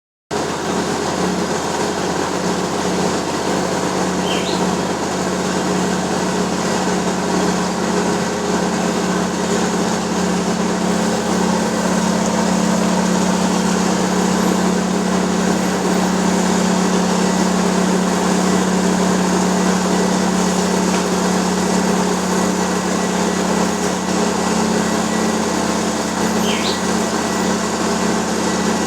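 Wirtgen cold milling machine running steadily as it mills asphalt off a road: a constant diesel drone with a steady low hum and dense grinding noise that does not change.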